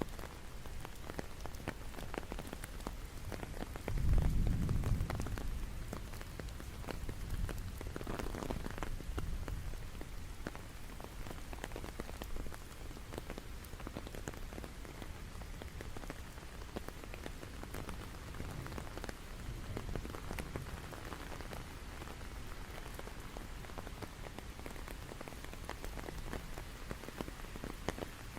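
Steady rain falling, with many individual drops tapping. A brief low rumble swells and fades about four seconds in.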